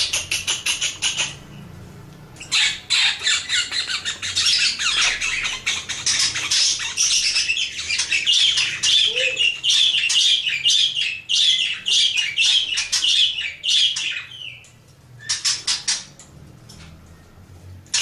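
Budgerigar chattering in a long, fast run of harsh chirps and squawks. A short burst opens it, it breaks off briefly about a second and a half in, runs on unbroken until near 14 seconds, then gives one more short burst.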